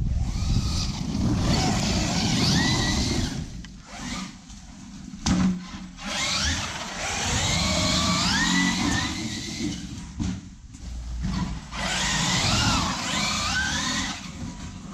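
Large-scale RC truck built on Losi 5ive-T parts being driven hard: its motor and drivetrain whine, rising and falling in pitch with the throttle, over a rough rumble of tyres on the ground. The sound drops away briefly a few times, with a short loud burst about five seconds in.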